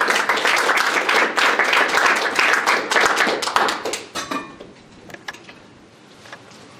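Audience applauding: dense clapping that thins out about four seconds in and ends in a few scattered claps.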